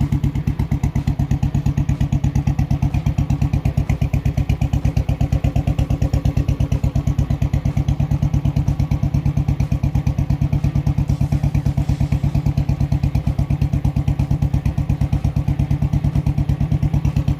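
Royal Enfield Bullet's single-cylinder four-stroke engine idling steadily through an aftermarket Dolphin silencer, a fast, even beat of exhaust pulses with no revving.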